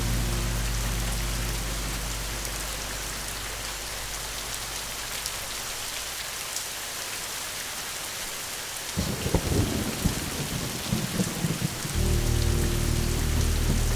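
Steady rain with a rumble of thunder rolling in about nine seconds in and lasting some three seconds. A low, sustained background music drone fades away early on and comes back near the end.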